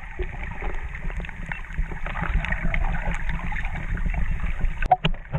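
Muffled water noise picked up by a camera held underwater: a steady rushing haze dotted with many small crackles and clicks.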